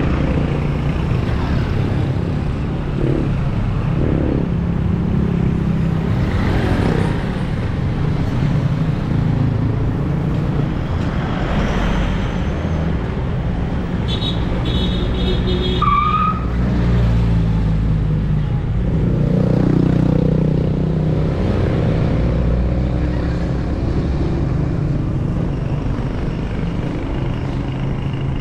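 Street traffic: motor vehicle engines running and several vehicles passing close by one after another, with a few short high-pitched sounds about halfway through.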